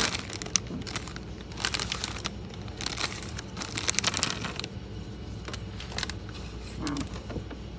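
Plastic snack pouch of mini butter cookies crinkling as it is handled. The crinkling is dense for the first five seconds or so, then becomes a few softer crackles.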